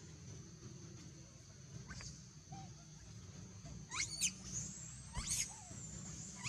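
Long-tailed macaques giving short, high-pitched squeals that rise sharply in pitch: a faint one about two seconds in, two quick louder ones about four seconds in, and another about a second later.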